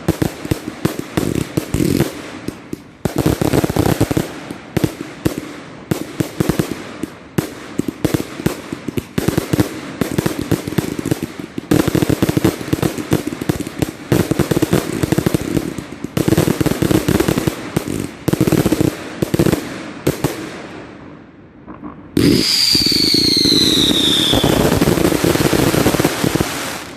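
Consumer firework barrage cakes firing a rapid, dense volley of bangs and crackles that thins out and fades after about 20 seconds. A couple of seconds later a loud hissing burst with falling whistles runs for about four seconds, then cuts off.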